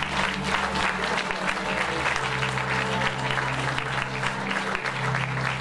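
Audience applauding, with background music of long held low notes underneath.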